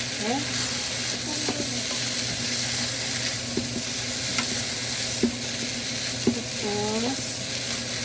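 Diced bopis meat sizzling in a frying pan while a wooden spatula stirs and scrapes through it, with a steady frying hiss under the spatula's clicks. Two sharper knocks of the spatula against the pan come about five and six seconds in.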